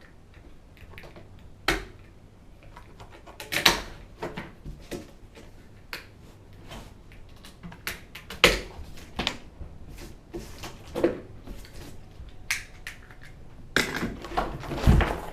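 Irregular knocks, clicks and rustles of a boxed skimboard being unpacked by hand: cardboard and packaging being pulled apart and the board handled, with a busier run of knocks near the end.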